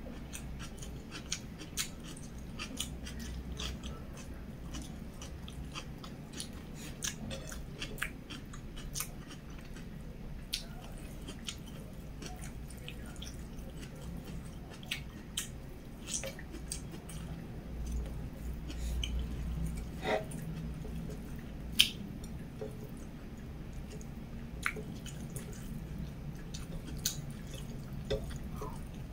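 Close-miked chewing and mouth sounds of a person eating a soft meal of rice and omelette by hand: a steady run of wet smacks and small clicks, with one sharper click about three quarters of the way through.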